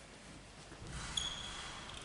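Table tennis serve: a faint click of the ball about a second in, overlapped by a high, steady squeak that lasts most of a second.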